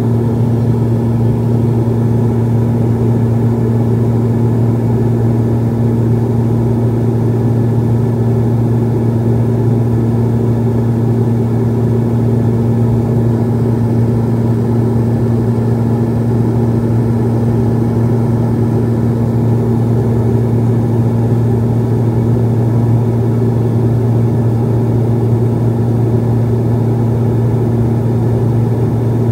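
Beechcraft 1900D's Pratt & Whitney PT6A-67D turboprop engine and propeller running steadily on approach, heard from inside the cabin as a loud, even drone with a strong low hum.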